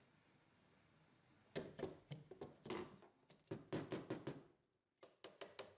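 Metal parts and hand tools clicking and knocking against an aluminium extrusion frame as bolts and T-nuts are fitted and tightened. The quick run of sharp clicks starts about a second and a half in, pauses briefly, and returns near the end.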